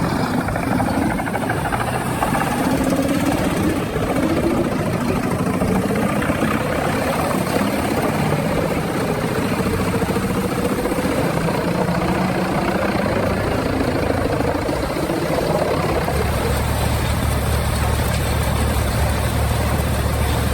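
Jenz HEM 820 DQ mobile wood chipper running under load, a steady heavy engine noise whose pitch wanders up and down, with a deep low hum growing strong about three-quarters of the way through.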